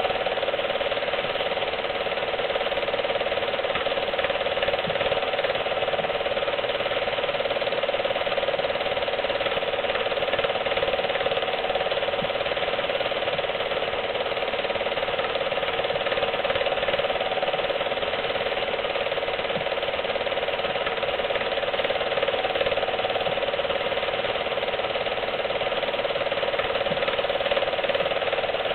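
Film projector running, a steady mechanical clatter and whir that does not change.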